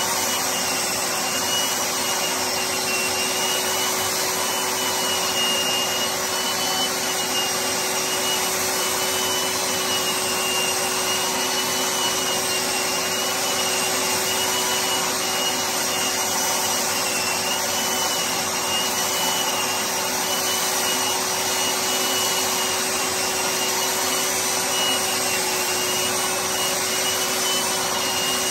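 Electric drywall sander running steadily as it sands dried plaster patches dry. A constant motor whine rides over the sanding noise.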